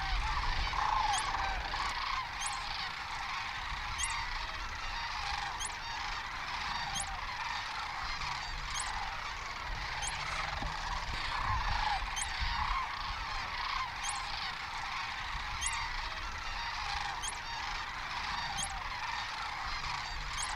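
A large flock of geese honking in a dense, continuous chorus of overlapping calls.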